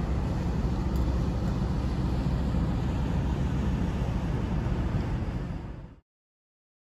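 Steady low rumble of a moving vehicle, which fades out quickly and cuts off about six seconds in.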